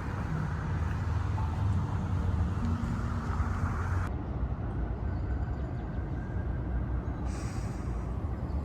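Steady low rumble of city traffic, with an even hiss over it. The sound changes abruptly about four seconds in.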